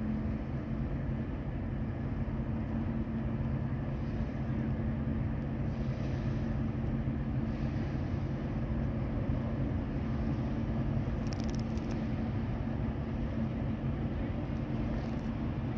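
Steady low drone of a Great Lakes freighter's diesel engines carrying across the harbour water, with a constant hum. A brief faint crackle comes about eleven seconds in.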